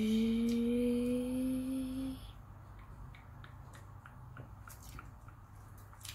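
A woman's drawn-out closed-mouth "mmm" hum, slowly rising in pitch, for about two seconds. After it come faint small clicks as food is pulled apart with the fingers.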